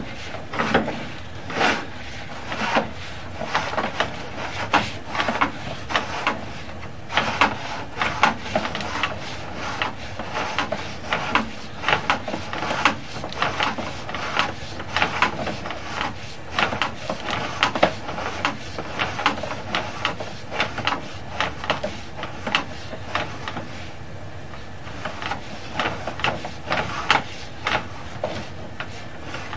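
Sewer inspection camera's push cable being fed by hand down a 3-inch ABS drain line: irregular rubbing and knocking strokes, about one or two a second, over a steady low hum.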